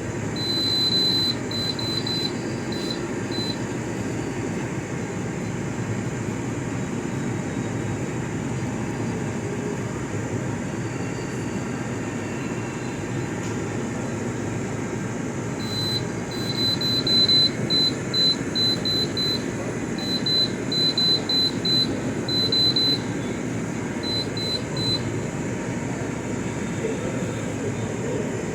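GE dehumidifier running at its maximum setting, its compressor and fan giving a steady hum and rush. Over it come short, high electronic beeps on one pitch: a brief run about a second in, and a longer, quicker run from about halfway to near the end.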